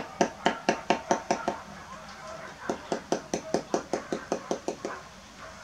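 Rapid hammer blows on a bricklaying job, about six a second with a slight metallic ring, in two runs with a pause of about a second between them.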